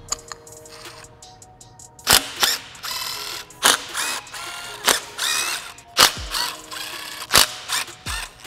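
Background music with a steady beat. About a second in, the quick clicking of a ratchet wrench turning out bolts on an aluminium engine block sounds under the music.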